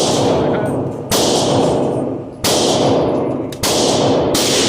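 Glock 19 Gen 3 9mm pistol firing steel-cased ammunition, four shots about a second apart, each followed by a long echoing decay; the pistol cycles the steel-cased rounds without trouble.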